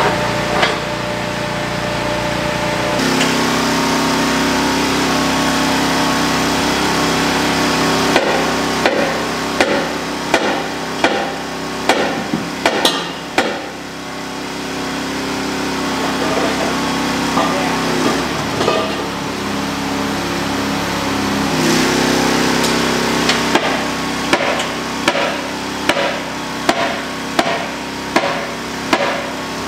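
Repeated metal knocks and clanks from hand tools working the hooks and buckles of snap-on dual wheels on a tractor rim, in two runs of roughly one strike a second, over a steady machine drone.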